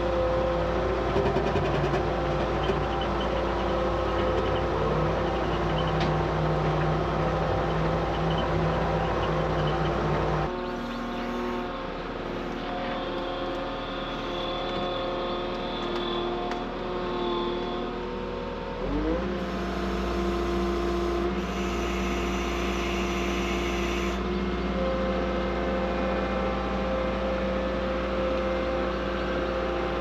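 Skid steer loader engine running steadily, its pitch shifting a few times and rising briefly past the middle as it is throttled up.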